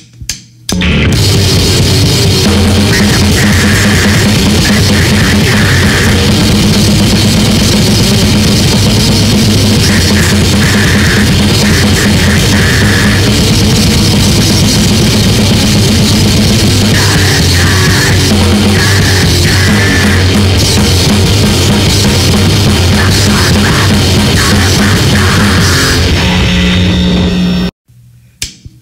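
A three-piece grindcore band playing a short song flat out: drum kit and guitar in a rough, raw demo recording. A few sharp hits lead in about a second in, and the song stops abruptly about a second before the end, followed by a few more short hits.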